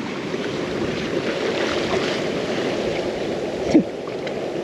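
Surf washing steadily in the shallows, with wind on the microphone.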